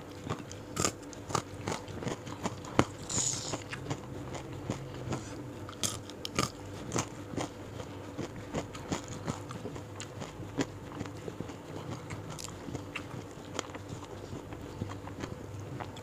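A person chewing and biting food right at a clip-on microphone: close, wet chewing with irregular crisp crunches and clicks throughout.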